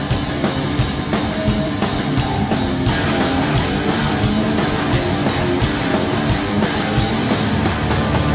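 Rock band playing live: an instrumental passage of hard rock with distorted electric guitars driven by a drum kit, loud and steady.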